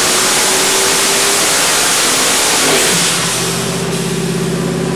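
Twin-turbocharged 428 Windsor small-block Ford V8 running hard on an engine dyno near 5,500 rpm, then about three seconds in the revs drop quickly and it settles into a steady run at around 2,000 rpm.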